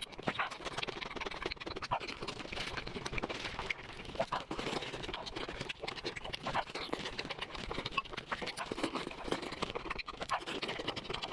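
Close-miked eating sounds: continuous chewing with wet mouth clicks and crackles, irregular and dense.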